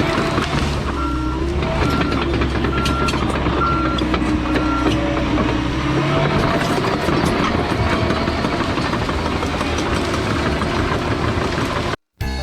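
John Deere 650K crawler dozer's diesel engine running under load, its pitch shifting as it works, with the backup alarm beeping several times in the first half and scattered clanks. The sound drops out briefly just before the end.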